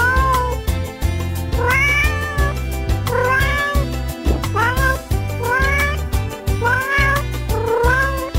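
A domestic cat meowing over and over, about seven short meows roughly a second apart, each rising and then falling in pitch, over background music with a steady beat.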